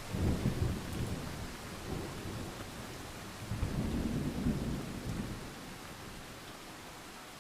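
Thunder rumbling over steady rain: a sudden clap at the start rolls on, then a second rumble swells about three and a half seconds in and fades away.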